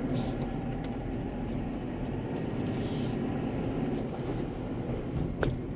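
Steady rumble of a Renault Triber driving on the road, engine and tyre noise together, with a single sharp click near the end.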